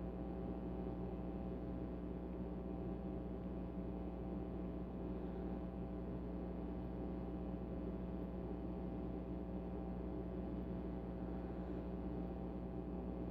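Steady background hum made of several fixed tones, with no distinct clicks standing out.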